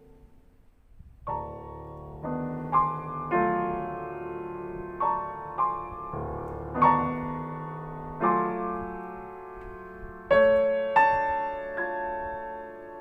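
Solo piano playing slow, sparse chords in a quiet, atonal contemporary piece: after about a second of fading resonance, a dozen or so chords and notes are struck one by one, each left to ring and overlap as it dies away.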